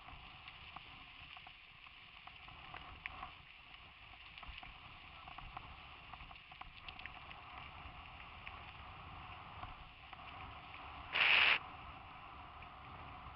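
Ride noise from a helmet-mounted camera on a mountain bike on a dirt track: a steady hiss of wind and tyres on gravel with scattered small clicks and rattles. A short, loud burst of sound comes about eleven seconds in.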